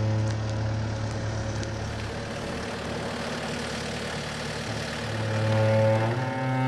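A large engine running at a steady speed, getting louder about five seconds in.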